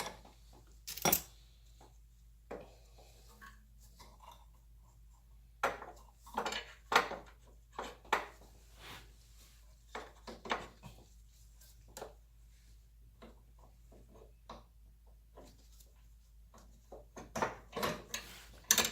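Irregular metallic clicks and clinks of a wrench and fuel-filter fittings being handled against metal while the new filter is put in place.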